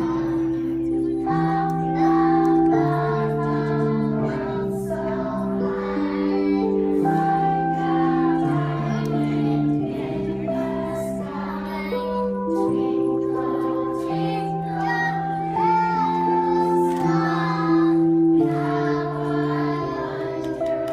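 A group of preschool children singing a song together over an instrumental accompaniment of steady, held notes.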